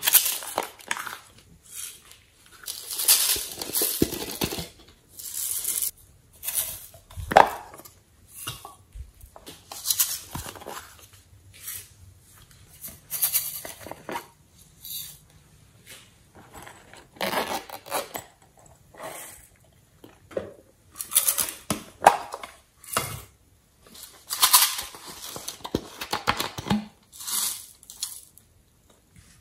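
Slime and soft clay being handled and pressed into a glass tray: irregular sticky squishes and crackles every second or two, with a few sharp clicks.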